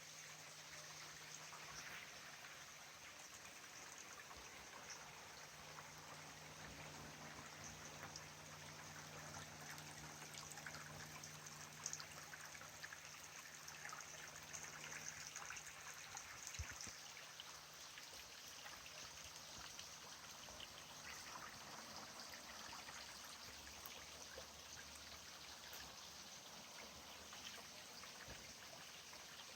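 Small mountain stream trickling and babbling over rocks, faint and steady, with a few small splashes.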